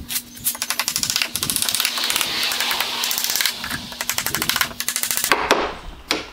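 A rapid, typewriter-like run of light clicks and rattling. Then, from about five seconds in, a few sharp hammer taps drive wooden plugs into glued, stripped screw holes in a wooden tool box.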